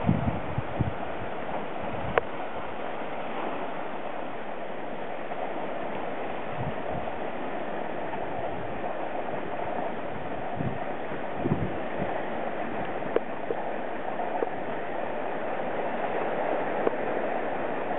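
Steady hiss of the sea washing over rocks at the shoreline below, with a few low thumps of wind buffeting the microphone.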